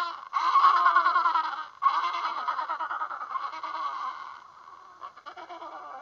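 African penguin braying: a string of wavering, donkey-like calls with short breaks, growing fainter over the last two seconds.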